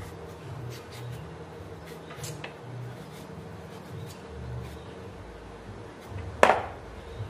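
Potatoes being peeled with a kitchen knife: faint scraping and small clicks over a low background rumble, with one sharp knock about six seconds in.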